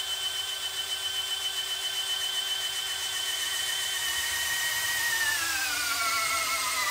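DeWALT DCD999 FlexVolt Advantage cordless drill in low gear spinning against a brake dyno: a steady motor and gearbox whine that falls in pitch over the last couple of seconds as the brake loads it up and the drill slows toward its peak torque.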